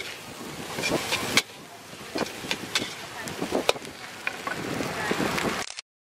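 Fried rice sizzling in a metal wok, with a metal spatula scraping and clanking against the pan as the rice is stirred and tossed. The sound cuts off suddenly near the end.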